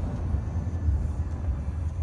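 Low, steady rumble from a hotel tower collapsing in a controlled explosive implosion, following a rapid series of demolition charges.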